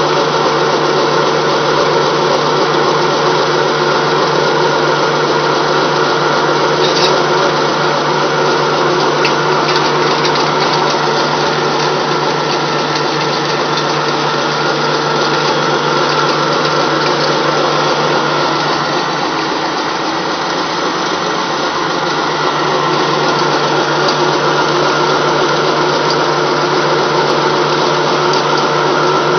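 Small flat die pellet mill running steadily, pressing feed through the die into animal-feed pellets: a loud, even machine hum that dips slightly about two-thirds through.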